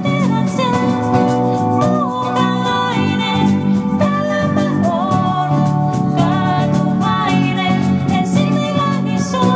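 Live band playing a gospel song: guitars, keyboard and cajón, with a melody line that bends in pitch over a steady accompaniment.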